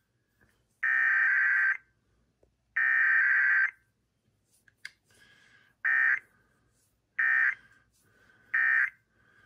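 Emergency Alert System SAME digital data bursts for a required weekly test: two roughly one-second header bursts a second apart, then three short end-of-message bursts about a second and a half apart.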